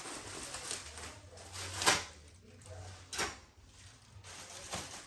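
Cardboard box and packaging being handled and pulled open: rustling with three sharp scrapes, the loudest about two seconds in.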